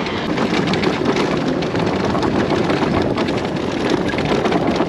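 Electric dirt bike riding over rough, bumpy ground: a continuous rush of wind and tyre noise with dense rattling and knocking as the bike bounces, and no engine sound. The chatter comes from rebound damping set too fast, which the rider says makes the bike bounce over every little bump.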